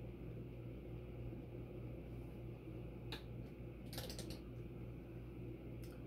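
Corbett Lighting Calcutta ceiling fan running steadily on a capacitor speed, a quiet, even low hum. A few short, sharp clicks come about three seconds in, a quick cluster about four seconds in, and one more near the end.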